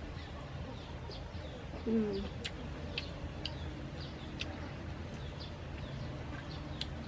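Small birds chirping again and again in short high calls mixed with sharp ticks, over a steady low background noise. About two seconds in, a brief low bird call stands out as the loudest moment.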